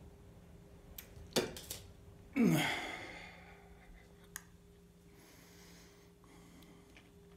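A man's forceful exhale with a short falling groan about two and a half seconds in, after a few small clicks; softer breathing follows.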